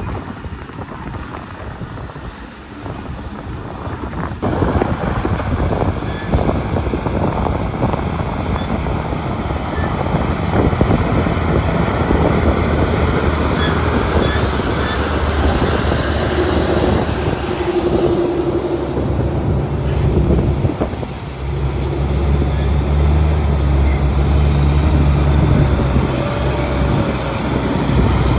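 Heavy earthmoving machinery at work: engine noise with a dense rattling haze that grows louder about four seconds in. A steady low engine drone becomes strong in the second half.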